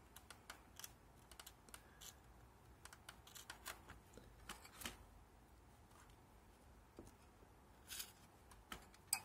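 Faint, scattered light clicks and scratches of insect pins being handled and pushed into a styrofoam board, with a couple of slightly louder clicks near the end.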